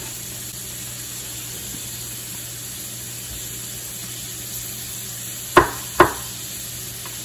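Chopped onion and garlic sizzling steadily in hot oil in a stainless steel skillet as they start to fry. Two sharp knocks come close together about five and a half seconds in.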